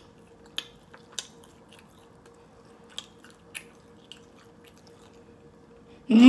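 Close-up mouth sounds of people eating chicken wings: quiet chewing with a few sharp wet clicks of biting. Loud laughter breaks in right at the end.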